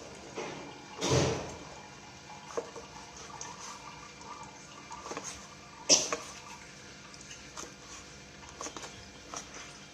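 Light clinks and knocks of dishes and utensils, with a brief rushing sound about a second in and a sharp knock about six seconds in.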